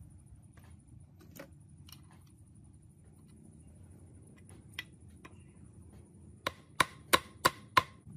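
Five sharp knocks with a short ring, about three a second, near the end, as a small engine's aluminium flywheel is fitted onto its crankshaft; a few light clicks of metal parts being handled before them.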